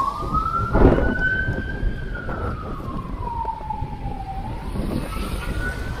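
Emergency vehicle siren on a slow wail, its pitch rising, falling over a few seconds and starting to rise again near the end. A short burst of noise comes about a second in, over a steady rumble of wind and traffic.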